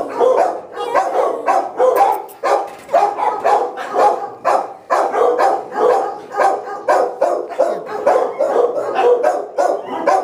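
Dog barking over and over in quick, steady succession, about two to three barks a second without a break.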